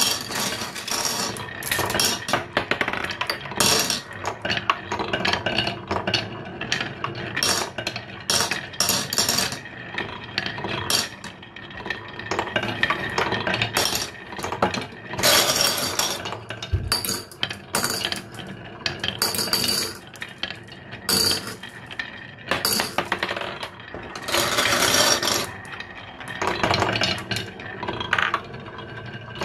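Glass marbles rolling down a wooden HABA marble run's zigzag chutes, clicking and rattling against the wood and each other in a near-constant stream, with busier bursts of clatter around the middle and near the end.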